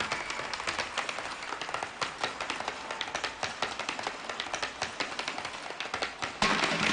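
A troupe of dancers striking hard-soled dance shoes on a stage floor in a dense, rapid clatter of taps, with no music; music returns near the end.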